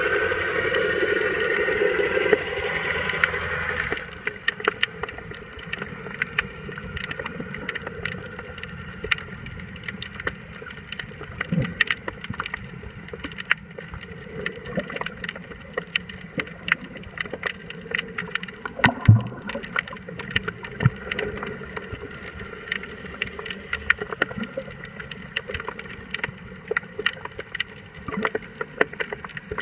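Muffled underwater sound: a steady hum with many short, sharp clicks scattered through it. It is louder and fuller for about the first four seconds, then drops to a quieter level.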